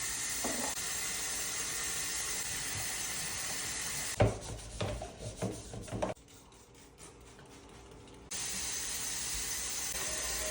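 Running water hissing steadily, which stops about four seconds in for a couple of seconds of knocks and clatters and a quiet pause, then starts again abruptly.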